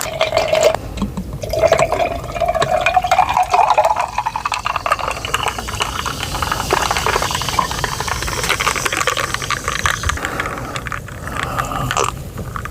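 A fizzy drink poured into a glass, with a fine fizzing crackle. The pitch of the pour rises steadily over about ten seconds as the glass fills, and stops near the end.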